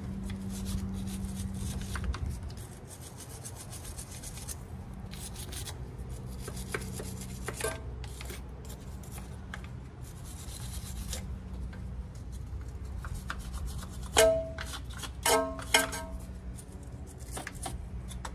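Scraping and scrubbing on the exhaust-manifold threads and mating surface of a 2.4L four-cylinder head, cleaning off rust and residue. Three sharp metal clinks that ring briefly come a few seconds before the end.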